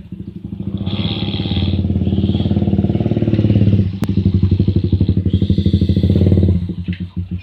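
A person snoring very loudly with a fast, rattling flutter. There are two long snores: the first breaks off a little past halfway, and the second fades out near the end.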